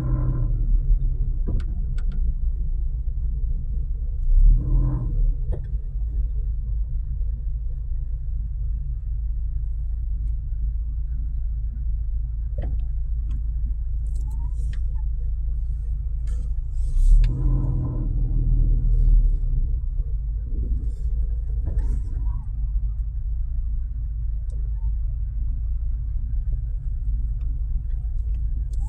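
Steady low rumble of idling vehicles and road traffic, swelling louder briefly about four seconds in and again around seventeen to nineteen seconds in.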